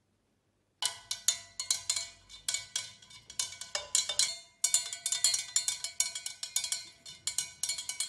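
Glass stirring rod clinking against the inside of a tall borosilicate glass measuring cylinder as the liquid is stirred round and round: rapid ringing clinks, several a second, starting about a second in, with a brief pause a little past the middle.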